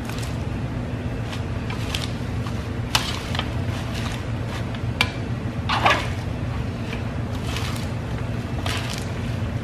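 Hands tossing and spreading leafy salad greens and chopped lettuce on a metal baking sheet: soft rustling and light crackling of leaves in scattered bursts, the loudest about six seconds in, over a steady low hum.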